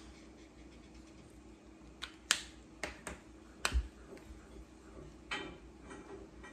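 Felt-tip marker caps being pulled off and snapped on, and a marker set down on the tabletop: a handful of sharp clicks between about two and four seconds in, one with a dull knock, and another softer click a little after five seconds.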